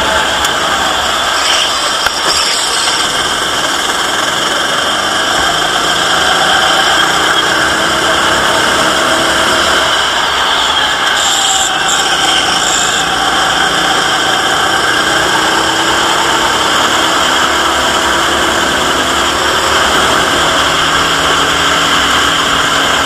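Onboard sound of a go-kart at racing speed: the engine's pitch rising and falling slowly through the corners under a steady rush of noise. A brief high squeal about halfway through, as the kart takes a tight corner.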